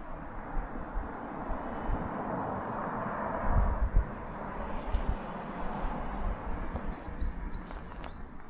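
Outdoor field ambience: a steady rushing noise that swells midway, wind gusts buffeting the microphone, and a few short high bird chirps near the end.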